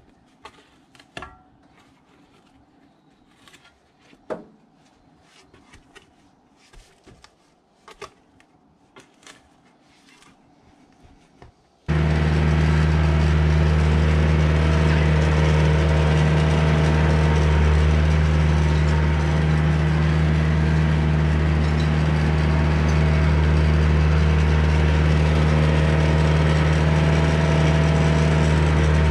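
Faint scrapes and knocks of a spade in soil, then about twelve seconds in the loud, steady drone of a diesel cab tractor's engine starts abruptly and runs at a constant speed while the tractor works the soil.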